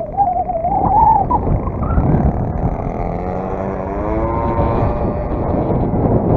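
A 35cc NGH single-cylinder two-stroke gas engine on a large RC plane in flight, spinning a 20x8 propeller. Its pitch wavers in the first second or so, then rises and falls as the plane passes. Strong gusty wind buffets the microphone throughout with a low rumble.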